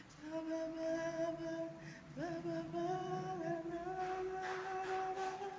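A woman's voice singing long held notes as a vocal exercise: one steady note, then a slide up to a slightly higher note about two seconds in, held with small steps upward.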